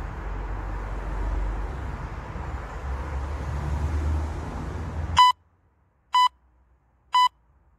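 Low outdoor background rumble, then three short electronic beeps about a second apart: an interval timer counting down to the next exercise.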